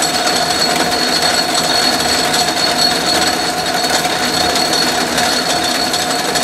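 Atlas metal lathe running with its spindle turning: a steady mechanical hum of the motor and belt drive with a constant high whine on top.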